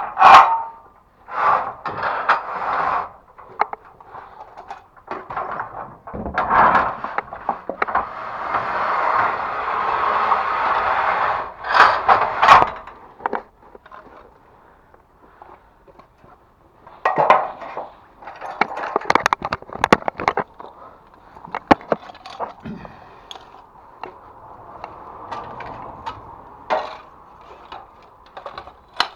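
Irregular knocks, clatters and scraping, as of hard objects being handled and moved about, with a cluster of sharp knocks about two-thirds of the way through.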